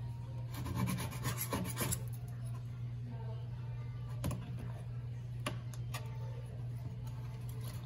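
Scraper blade rasping along a stainless steel sink rim to strip old caulk, a quick run of short scraping strokes in the first two seconds, then a few separate clicks and taps, over a steady low hum.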